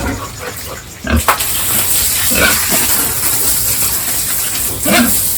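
Pigs grunting, with a steady rush of running water starting about a second in.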